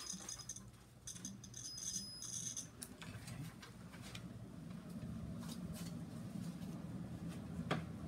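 A wire tester beeping with a high tone, briefly at the start and again from about a second in to nearly three seconds, as its probes touch a ceiling fan light-kit wire: the beep means the wire conducts. Light clicks and rattles of handled wiring follow, over a low steady hum.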